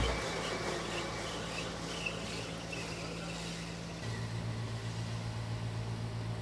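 Metal lathe running with a steady low hum as it turns a stainless steel shaft; the hum changes about four seconds in.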